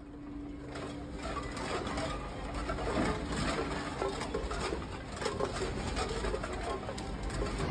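Store shelving and merchandise rattling and clattering in an earthquake: a steady run of quick clicks and knocks, over a low steady hum for the first few seconds.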